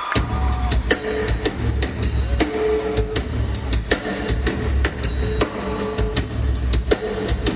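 A live rock band starting a song: a drum kit with a steady beat of kick and snare hits over bass and guitar, coming in suddenly as the crowd cheering ends.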